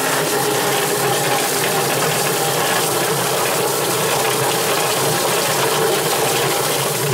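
Yardbird drum chicken plucker running steadily, its rubber-fingered plate spinning a scalded chicken around to strip the feathers, with a hose nozzle spraying water into the drum.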